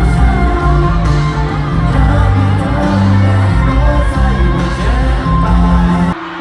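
Live pop band playing loudly, with singing over heavy bass, heard in a large hall. The music cuts off suddenly near the end, leaving crowd noise.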